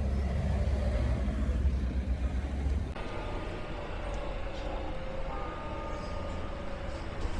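Low rumble of a motor vehicle, then an abrupt change about three seconds in to quieter traffic noise with a few faint steady tones.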